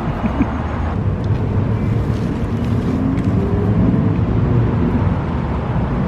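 Road traffic running past: a steady low rumble of car engines and tyres, a little louder near the middle.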